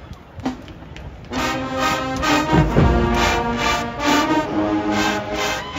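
An HBCU show-style marching band's brass section comes in loud about a second in, playing full sustained chords over a heavy low end.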